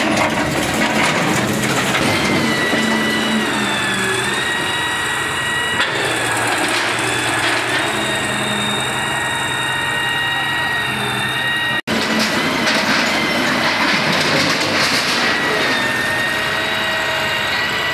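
Kobelco hydraulic excavator running under load, its engine drone overlaid by a steady high whine that wavers slightly in pitch, while its bucket breaks concrete from a building and rubble cracks and falls. The sound cuts out for an instant about twelve seconds in.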